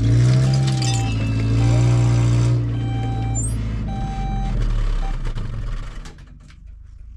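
A vehicle's engine running while it reverses, its reversing alarm beeping about once a second; the engine stops about six seconds in.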